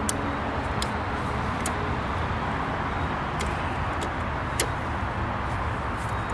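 Ratchet strap's ratchet clicking as the handle is cranked to pull the vehicle, single sharp clicks about once every second or so over a steady rushing background.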